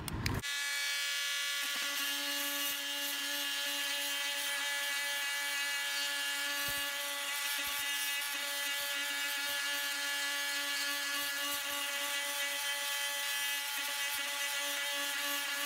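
Oscillating multitool with a toothed plunge-cut blade cutting across a pine door jamb, starting about half a second in and running as a steady buzz.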